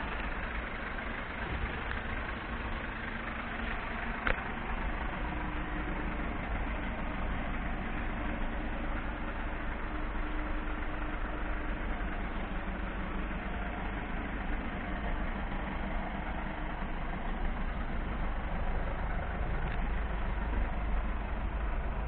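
Mercedes Sprinter 514 CDI diesel engine idling steadily, with one sharp click about four seconds in.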